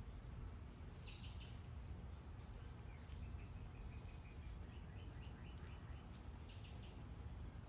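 Small birds chirping: a quick cluster of high chirps about a second in, a run of rapid, evenly spaced notes in the middle, and another high cluster near the end, over a faint steady low rumble of outdoor background noise.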